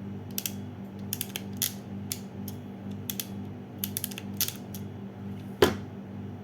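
SN-03BM ratchet crimping tool clicking as it is squeezed around a connector terminal: a run of quick irregular clicks, then one much louder snap near the end.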